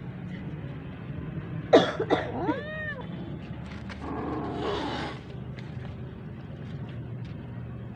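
Domestic cats calling: a sharp, very short cry just under two seconds in, then a short meow that rises and falls in pitch, and a rougher, noisier call from about four to five seconds in.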